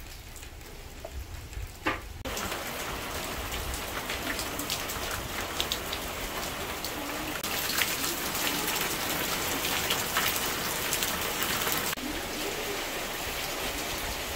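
Steady rain falling into a stone basin of water and onto wet grass and stone, with single drops pattering through the hiss. It grows louder about two seconds in.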